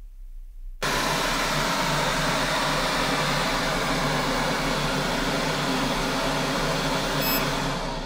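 FumeClear FC-2004 fume extractor running at its maximum setting: a steady fan rush with a low hum that starts abruptly about a second in, after a quiet room. It measures an average of about 68 decibels, on the quieter side for a fume extractor.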